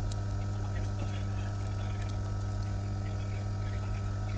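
A steady low electrical hum, with faint scattered ticks.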